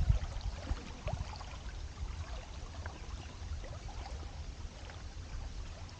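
Faint trickling and lapping of water around a stand-up paddleboard on a slow river, over a low steady rumble.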